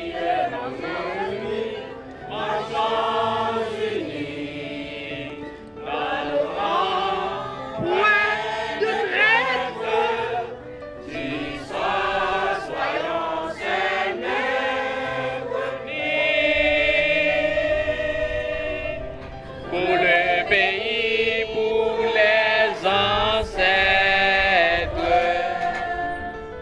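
A group of voices singing a song together, in phrases with wavering pitch and a long held note past the middle.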